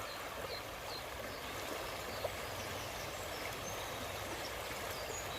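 Steady rush of a stream or river, with a few faint short bird chirps above it.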